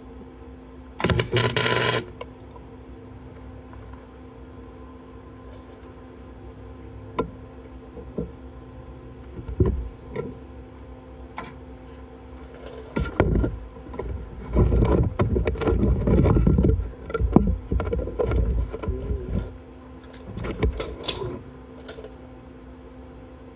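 A short welding burst of about a second, about a second in, over a steady electrical hum. Later come several seconds of metal clanking and scraping as the work is handled.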